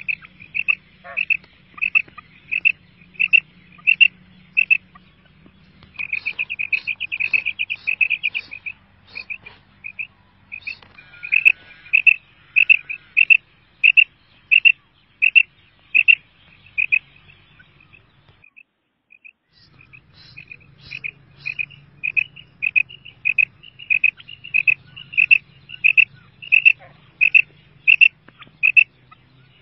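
Female quail calling: a long series of short, evenly spaced high notes, about one and a half a second. A quicker run of notes comes about six seconds in, and there is a short pause a little past the middle.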